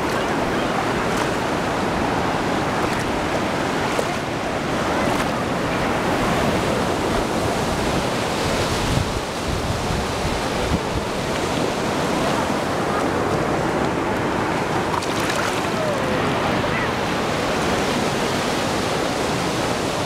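Ocean surf: waves breaking and washing in, a steady rush of water that eases briefly about nine seconds in.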